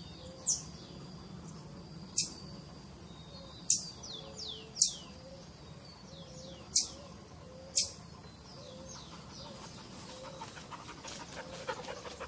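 Marmosets calling: about six sharp, very high-pitched calls, each a quick downward sweep, with fainter calls of the same kind between them. A burst of faint chattering and clicks comes near the end.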